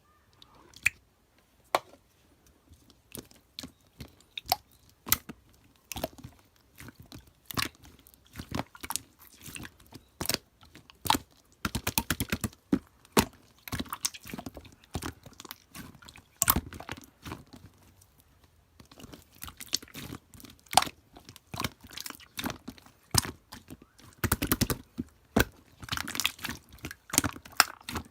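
Slime being played with, making irregular sharp pops and crackles, with denser runs of crackling about twelve seconds in and again near the end.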